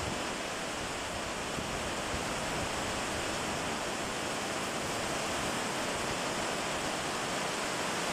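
Heavy rain pouring down onto paving stones, a steady dense hiss of downpour that holds even throughout.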